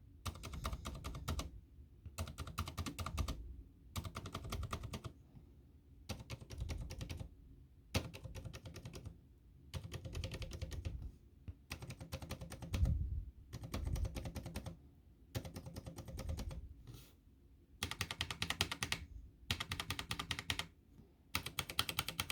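Mechanical keyboard switches, Zilent Aqua silent tactiles and Gateron Browns, pressed hard and bottomed out in quick bursts of rapid keystrokes with short pauses between bursts. Much of the clatter is the cheap, empty, unsoldered board resonating rather than the switches themselves.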